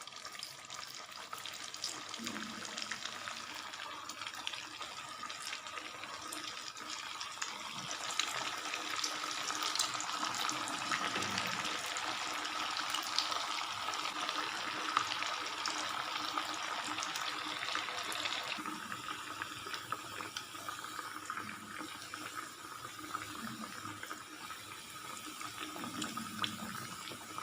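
Semolina-and-potato cutlets sizzling as they fry in hot oil: a steady hiss full of small crackles, louder through the middle stretch.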